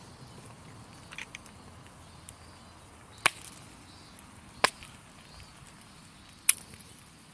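A plastic drink bottle's screw cap being twisted hard to break its seal: three sharp clicks about a second and a half apart, with fainter ticks between.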